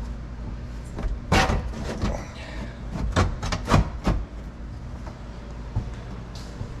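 Back glass panel of a Can-Am Maverick X3 being worked into place against the cab frame. There are about five sharp knocks and clunks between one and four seconds in.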